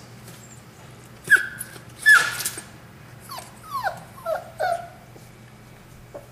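Young puppy whimpering and yelping: about six short, high cries, each falling in pitch, spread between about one and five seconds in, the second the loudest.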